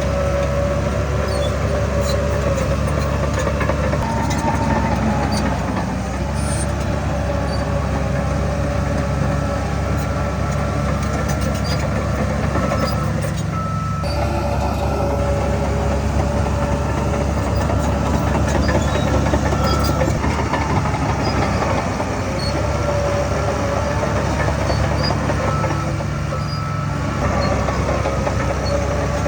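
Heavy diesel earthmoving machinery running steadily under load, with a constant low rumble and steady high metallic whines and squeals over it.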